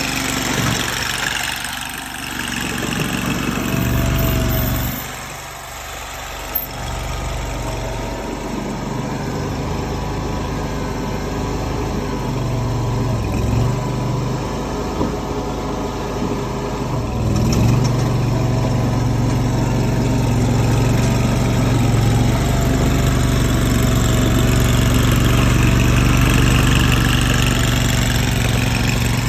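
Tracked mini skid steer's engine running steadily while the machine works, its note dipping briefly a few times.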